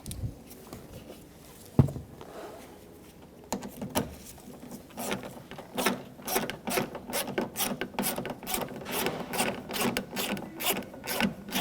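Hand ratchet with a T25 Torx bit clicking as it drives in a door handle mounting bolt, about three clicks a second from about three and a half seconds in. A single sharp knock comes about two seconds in.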